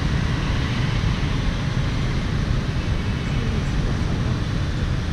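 Steady street traffic noise: an unbroken low rumble and hiss of engines and tyres.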